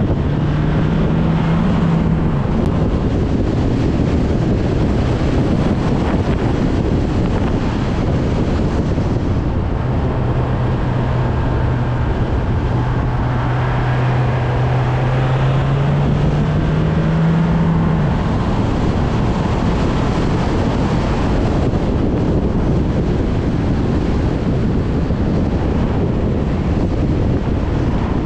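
Car on the move: steady road and wind noise on the microphone, with a low engine hum that comes and goes, rising slightly before it drops out about two-thirds of the way through.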